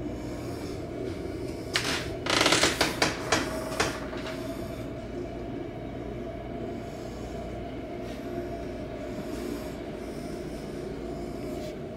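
A wooden wardrobe door being slid or handled, a burst of rubbing and rattling lasting about two seconds that starts about two seconds in, over a steady low room hum.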